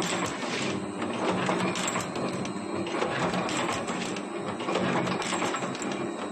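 Automatic chain welding machine running through its cycles: steady mechanical clatter over a low hum, with repeated clicks and clanks.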